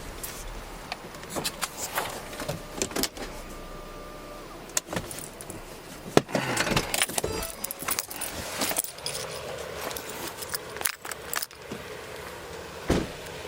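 Keys jangling with a run of clicks, rattles and knocks, picked up close to a body-worn camera, with the loudest knocks about six seconds in and near the end. A low rumble underneath fades out about five seconds in.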